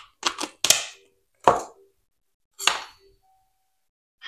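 Kitchen knife cutting into a cooked ribeye steak to check its doneness: about six sharp knocks in the first three seconds, the loudest about a second and a half in.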